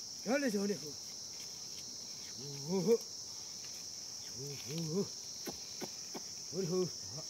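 A man's short, wordless calls to a plough team of oxen, four of them spaced about two seconds apart, over a steady high-pitched insect chorus.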